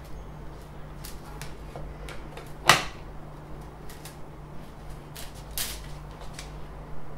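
A filament spool being handled and fitted onto the top of a delta 3D printer: scattered light plastic clicks and knocks, with one sharp knock about a third of the way in and another strong one a little past halfway. A faint steady hum runs underneath.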